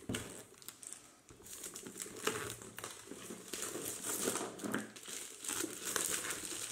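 Plastic shrink-wrap crinkling in irregular crackles as it is pulled off a cardboard box.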